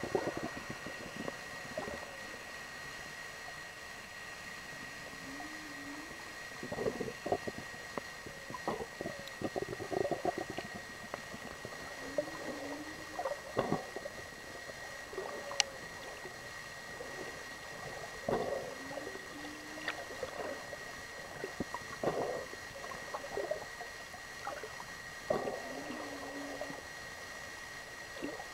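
Underwater sound picked up by a compact camera: bubbling, gurgling water noise that swells every few seconds over a steady high whine. A short, low, wavering tone recurs about every six or seven seconds.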